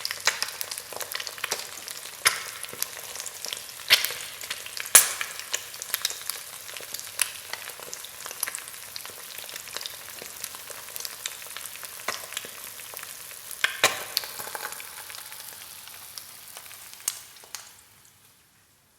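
An egg frying in a pan: a steady crackling sizzle of hot fat with sharp pops now and then, the loudest about four and five seconds in. It fades out near the end.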